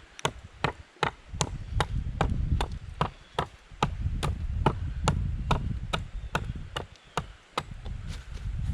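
A steady run of sharp knocks, about four a second, over a low rumble that swells and fades.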